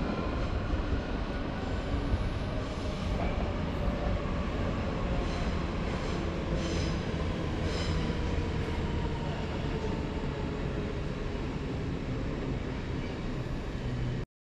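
Train moving along the platform tracks: a steady rumble of wheels on rails, with a faint whine that slowly falls in pitch and a few short high squeaks about five to eight seconds in.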